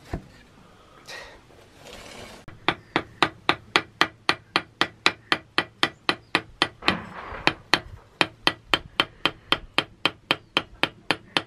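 Hand hammer striking hot metal on an anvil in a fast, even rhythm of about four ringing blows a second, starting about two and a half seconds in.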